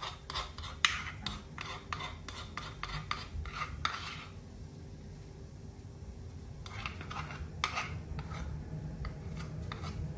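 Metal spoon scraping and tapping inside a wooden bowl as it scoops out a wet herb and garlic mixture: a quick run of scrapes for about four seconds, then a second run after a short pause.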